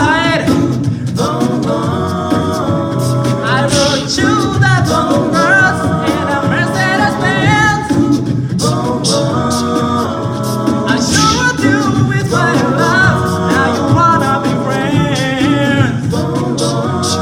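A group of voices singing a song in harmony, several parts at once over a steady low line.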